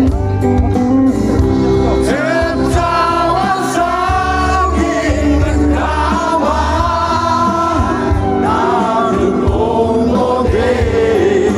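A live band playing through a big outdoor PA with a singer, heard from among the audience.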